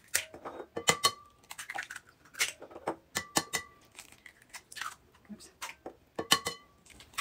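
Eggs being cracked one after another on the rim of a ceramic mixing bowl: a series of sharp taps, several leaving the bowl ringing briefly, with the shells crunching as they are pulled apart.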